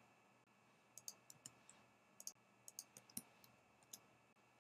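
Faint, sharp computer mouse clicks, about a dozen scattered over three seconds starting about a second in, some in quick pairs.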